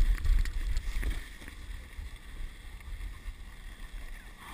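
Dog sled gliding along a snow trail: runners hissing over the snow, with a heavy wind rumble on the microphone and a few knocks that ease off about a second in, leaving a steadier, quieter hiss.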